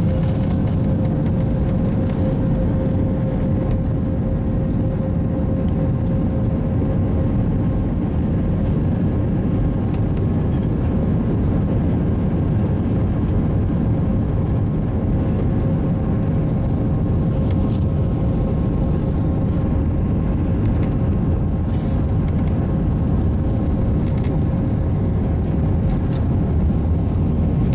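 Airliner's jet engines at takeoff thrust during the takeoff roll, heard inside the cabin. A steady engine whine sits over a loud, even rumble of engine and rolling noise.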